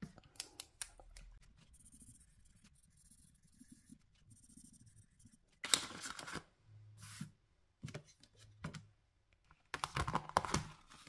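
Paper being handled, likely banknotes and cash envelopes: quiet at first with faint ticks, then several short rustles from about six seconds in, and a denser run of rustling and clicks near the end.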